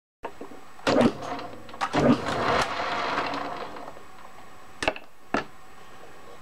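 Hand-tapping a 5/16 thread on a lathe: sharp metal clinks and knocks from the tap, tap wrench and chuck, about five in all, with a grating stretch of a second or so in the middle.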